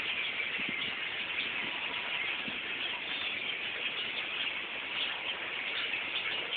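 A large flock of birds calling together in a dense, continuous chatter.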